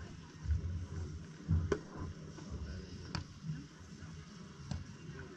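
Outdoor ambience with wind rumbling on the microphone in uneven gusts, and three short, sharp knocks about a second and a half apart.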